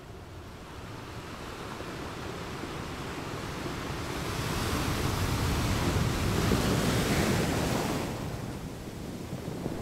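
Ocean surf: a wave rush swells about halfway through, peaks, and falls back near the end over a steady wash.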